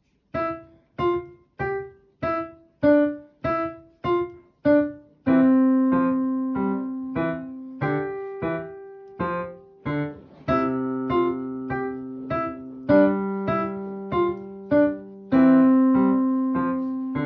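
Kawai digital piano playing a simple beginner's piece. It opens with eight short, detached staccato notes; from about five seconds in, held bass notes sound under the melody, and longer notes and two-hand chords follow.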